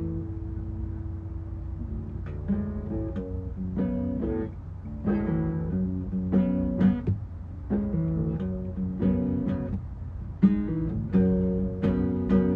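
Cutaway acoustic guitar played solo: a chord left ringing, then a run of strummed chords, one or two strokes a second, moving between chords.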